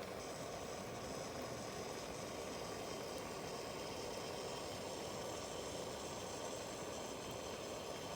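Steady rain falling on the tent and tarp, an even hiss that does not let up.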